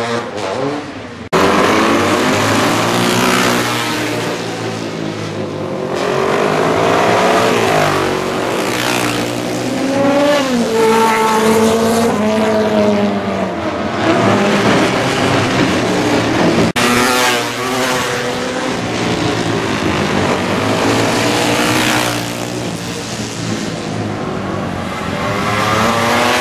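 Classic racing motorcycles passing one after another at speed, their engines revving up and down through the gears so that the pitch climbs and falls repeatedly. The sound breaks off abruptly twice.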